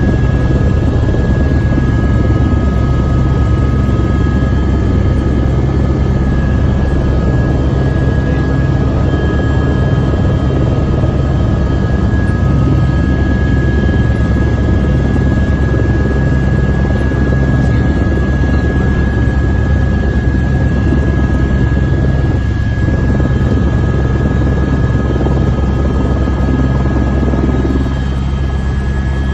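Helicopter in flight: a steady, loud low rumble of rotor and engine, with a steady high whine over it.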